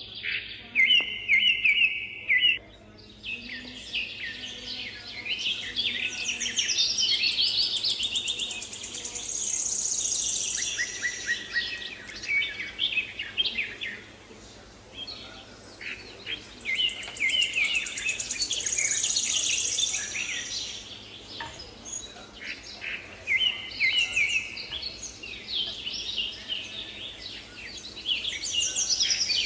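Small birds chirping and singing in rapid high trills and repeated phrases, almost without pause.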